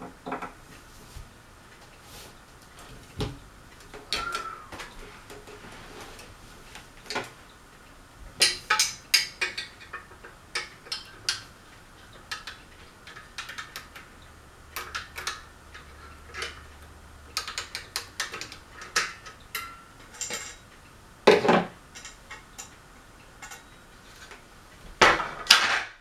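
Metal parts of a Crest ceiling fan clinking and knocking as they are handled by hand: an irregular scatter of sharp clicks and clanks, the loudest about 21 seconds in and again near the end.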